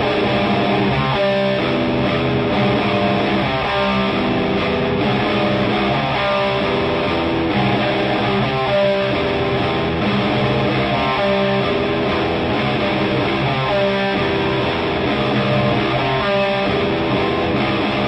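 Electric guitar playing a sustained, repeating riff, the opening of a heavy rock song, with no drums.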